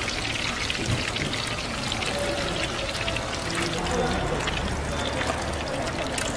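Battered vegetable fritters deep-frying in a pan of hot oil: a steady, dense sizzle full of fine crackles.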